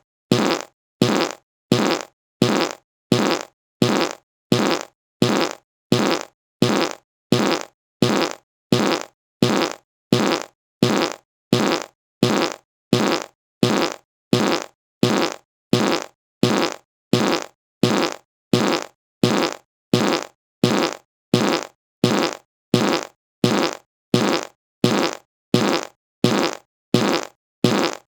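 A short fart, repeated over and over at an even pace of about one and a half a second, each one starting sharply and trailing off.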